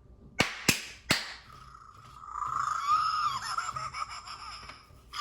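Three sharp hand claps in the first second and a half, then the Fingerlings Grimling Evil Gigi toy answering with a wavering electronic chirping sound for about three seconds.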